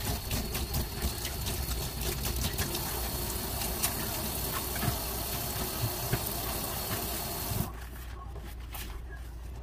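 Kitchen tap running into a stainless steel sink while things are rinsed under it, with light knocks and clatter. The water shuts off near the end.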